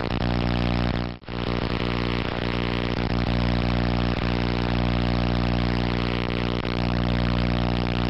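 A steady, low-pitched buzzing hum that drops out for a moment about a second in.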